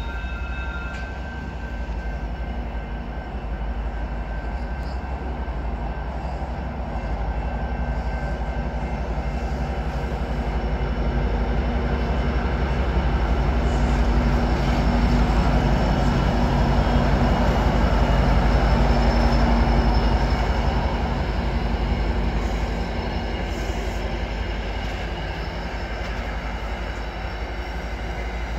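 Diesel commuter train passing close by, led by an EMD F59PHI locomotive: a steady engine drone and rumble of wheels on rail that builds to its loudest around the middle as the locomotive goes by, then the coaches rolling past.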